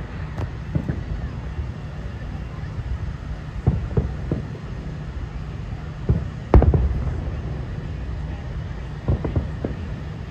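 Distant aerial fireworks shells bursting in a loose series of booms, the loudest about two-thirds of the way through with its rumble trailing off over a second or so. A steady low rumble lies underneath.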